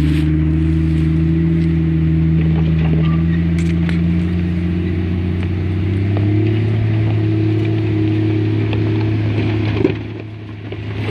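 Jeep Cherokee XJ's engine running at low, fairly steady revs as it crawls over rocky ground. A single sharp knock comes near the end, and the engine then goes briefly quieter.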